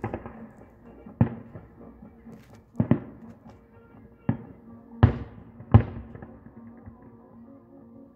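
Aerial fireworks shells bursting: about six sharp booms at irregular intervals of one to one and a half seconds, the loudest two about five seconds in, with music playing underneath.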